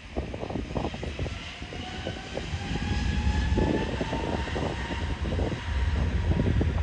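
Distant Boeing 737-300's CFM56 jet engines on approach to land: a steady jet whine with thin tones that rise slowly in pitch, getting a little louder. Gusts of wind on the microphone add a heavy low rumble.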